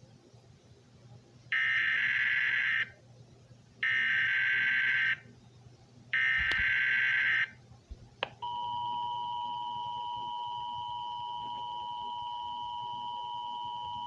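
Emergency Alert System tones. Three short, equal bursts of SAME digital header data come first, then the EAS two-tone attention signal, a steady dual tone held about six seconds before cutting off. Together they announce the start of a new alert message.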